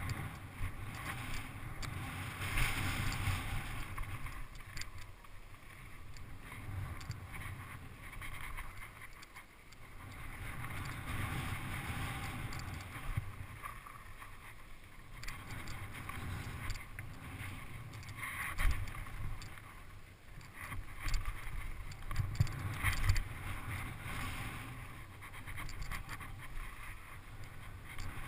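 Mountain bike riding fast down a dirt and gravel trail: wind rushing over the camera microphone and tyres rolling on loose dirt, with the bike rattling and knocking over bumps, several sharp knocks in the last third.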